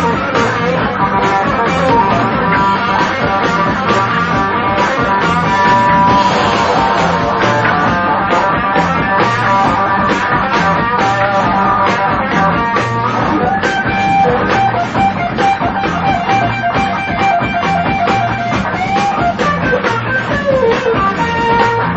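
Guitar-led rock music with a steady, regular bass beat.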